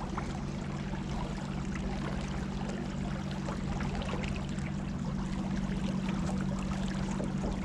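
A boat's motor running at a steady pitch, with water rushing and splashing along the hull.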